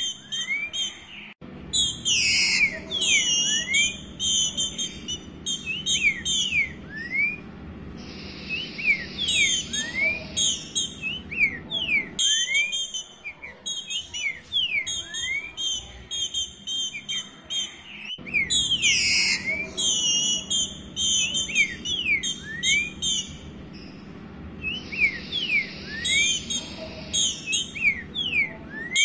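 Female green-winged saltator (trinca-ferro) calling for a mate: quick series of short rising whistled notes mixed with higher chirps, in phrases with brief gaps. The same sequence repeats about every 17 seconds.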